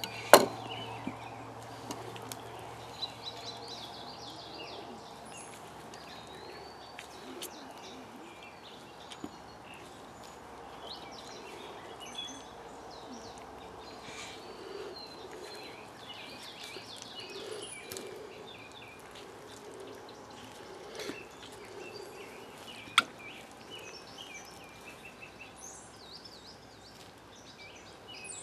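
Songbirds chirping and calling on and off over a faint background hiss, with a few sharp clicks, the loudest just after the start and another about 23 seconds in.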